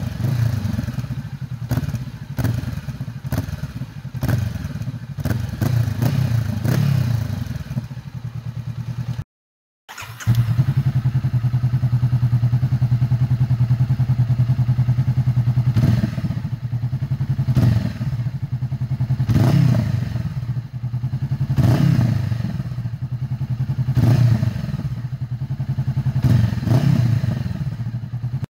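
Honda CBR500R parallel-twin engine idling through a Blackwidow carbon oval aftermarket silencer, with repeated short throttle blips that rise and fall every second or two. The sound breaks off for about a second, about nine seconds in, then the idle and blips resume.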